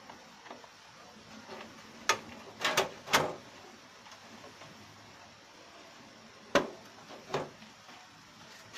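Sharp metallic clicks and knocks of hands handling a steel desktop computer case and its parts: a cluster of knocks two to three seconds in, then two more a few seconds later.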